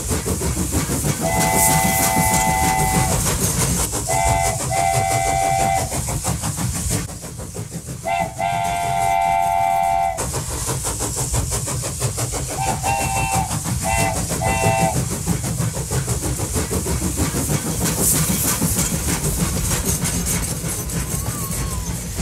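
Toy trains running on plastic track with a continuous rattling whir. An electronic train horn sounds over it seven times: a long blast about a second in, two shorter ones around four to five seconds, a long one around eight to ten seconds, and three short toots between thirteen and fifteen seconds.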